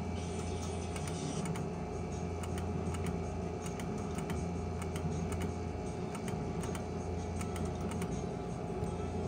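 Video skill game machine spinning its reels: a run of short electronic clicks, a few a second at uneven spacing, over a steady low hum.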